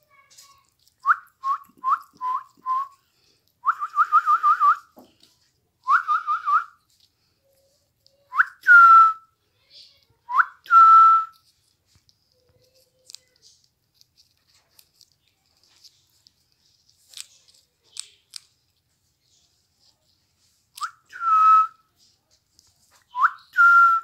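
Whistling at much the same pitch: a few short rising chirps, then quick runs of four to six notes, then longer whistles that sweep up and hold. A few faint clicks fall in the pause about two-thirds of the way through.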